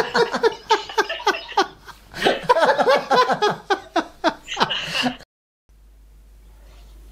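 Two men laughing hard in rapid, repeated bursts, in two bouts with a short lull between them. The laughter cuts off abruptly about five seconds in, leaving only a faint hum.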